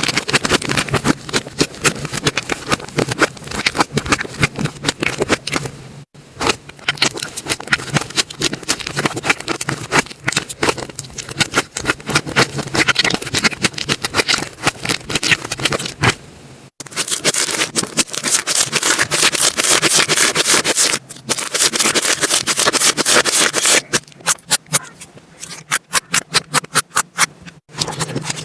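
Slime being squished, poked and stretched by hand close to the microphone: a dense run of wet clicks, pops and crackles. It breaks off abruptly several times, and near the end there is a quicker, even run of pops.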